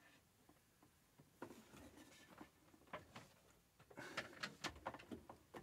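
Faint handling noises on a studio monitor: soft clicks and light rustling as its controls are worked by hand, a few at first and then a quicker run of clicks in the last second and a half.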